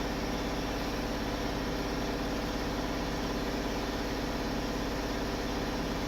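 Steady machine hum: a low, even drone with a constant hiss over it, unchanging throughout.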